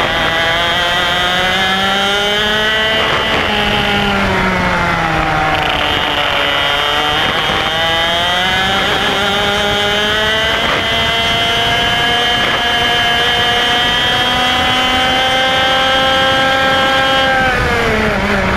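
IAME X30 125cc two-stroke kart engine at racing speed. Its pitch climbs, then falls about three seconds in, climbs steadily again for a long stretch, and falls sharply near the end.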